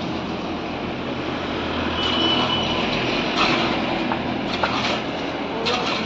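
A steady engine drone, with a few short scrapes of a shovel and metal pans on wet concrete.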